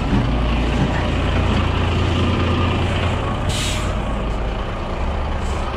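Truck's diesel engine idling steadily, with a short hiss of compressed air being released about three and a half seconds in.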